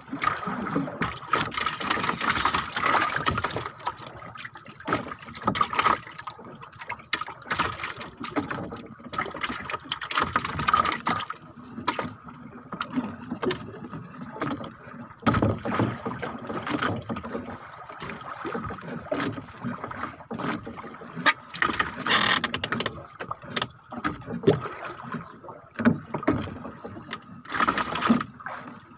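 Fishing handline being hauled in hand over hand in a small boat: irregular swishing and rustling of the line with sharp knocks against the wooden hull, over a faint steady high tone.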